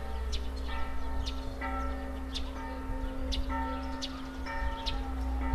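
Church bell tolling, struck about once a second by an electric-motor bell ringer, each stroke ringing on into the next.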